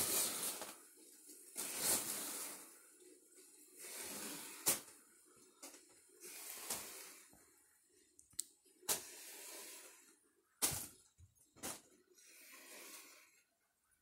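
Ceiling fan blades striking and brushing against floating foil balloons: crinkly swishes about every two seconds that fade away, with several sharp slaps in the middle of the stretch.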